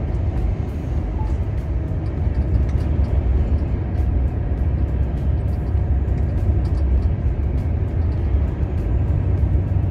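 Steady low rumble of a truck driving at road speed, engine and tyre noise heard from inside the cab.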